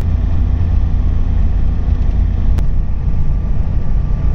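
Steady low road rumble of a car driving at highway speed, the engine and tyre noise heard from inside the cabin. There is one short click about two and a half seconds in.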